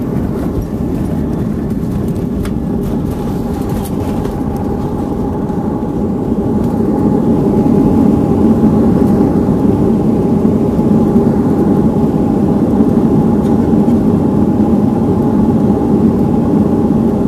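Jet airliner cabin noise on the landing roll: a steady engine roar and runway rumble that grows louder about seven seconds in, as the ground spoilers come up and the engines spool up for reverse thrust and braking.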